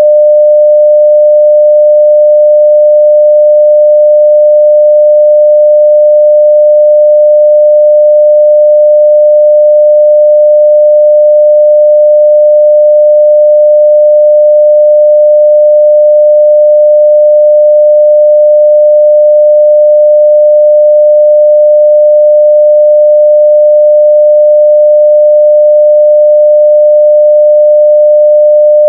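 Continuous 600 Hz sine-wave test tone at full level (0 dB), one steady pitch with no change.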